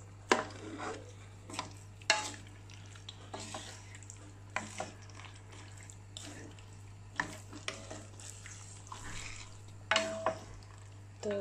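Wooden spatula stirring chicken pieces through thick spice paste in a stainless-steel wok, with irregular scrapes and knocks against the pan over a faint sizzle.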